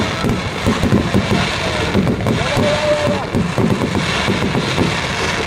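Aerial fireworks shells bursting in quick succession: a dense, continuous rumble of booms and crackle.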